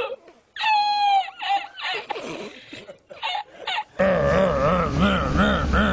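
A man's high, wheezing laughter in breaking bursts from the inserted 'El Risitas' laughing-man meme clip. About four seconds in it cuts off and a steady low hum with an evenly repeating pulsing sound takes over.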